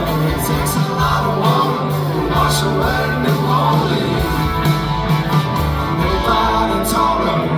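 A rock band playing live, with guitars, a steady bass line and cymbal hits.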